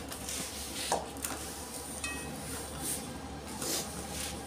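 Light clinks and knocks of a small kitchen knife and stainless-steel bowls, the sharpest about a second in, with soft rustling as fresh red chillies are handled and slit.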